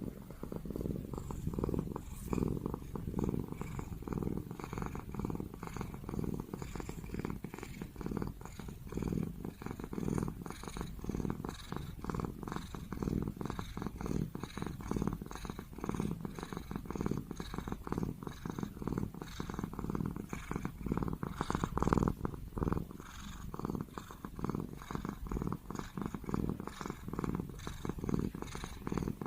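Li hua tabby cat purring steadily: a continuous, fast, even pulsing rumble.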